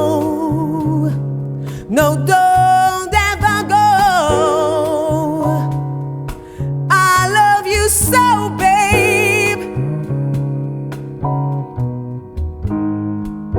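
Background music: a slow ballad in which a wavering melody line with vibrato sings over guitar and bass, leaving only the instruments after about nine seconds.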